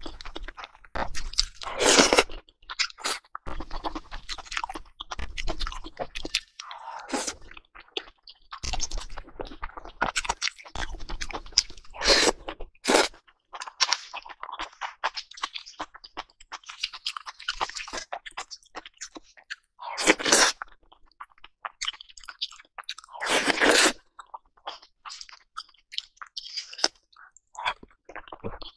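A person chewing and crunching food close to a clip-on microphone, in irregular bites with a few louder bursts.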